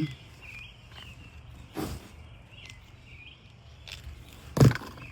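Two short rustling noises, a softer one near the middle and a louder one near the end, over faint high chirps in the background.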